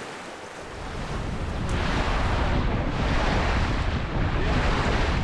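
Wind buffeting the microphone over waves washing around a sailing yacht under way; the wind rumble comes in strongly about a second in.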